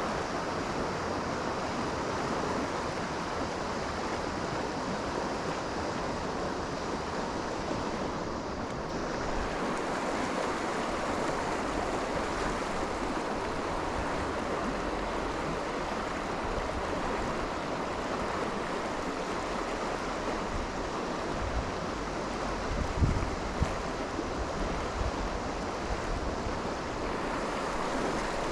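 Steady rushing of river current, an even wash of water noise, with a couple of brief low bumps about two-thirds of the way through.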